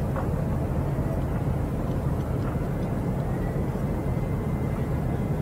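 A steady low rumble of vehicle noise that stays even throughout, with a faint thin high tone in the middle seconds.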